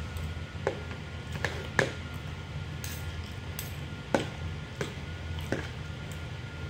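Metal spoon and fork clinking and scraping against a plate while eating fried noodles: about six sharp taps, the two loudest about two and four seconds in, over a steady low hum.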